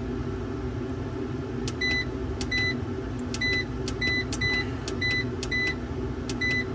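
MPP Solar PIP LV2424 inverter's control panel beeping once for each press of its down button: about eight short, high beeps at irregular intervals over a steady low hum.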